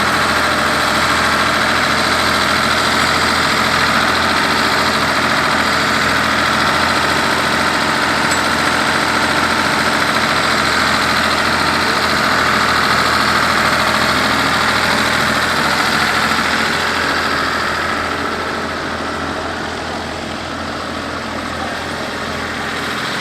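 1965 Ford 3000 tractor's three-cylinder engine running steadily, growing quieter in the last few seconds.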